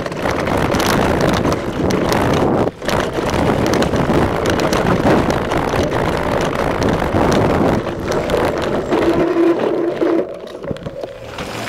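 Wind rushing over the microphone and tyre noise with clattering from a mountain bike descending a dirt trail at speed, broken by a brief gap just under three seconds in. About ten seconds in the noise drops off sharply to a much quieter background.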